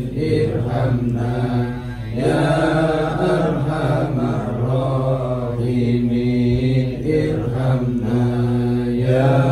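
A group of men chanting Islamic dhikr in unison, in long drawn-out phrases with a short breath break about two seconds in and again near seven seconds.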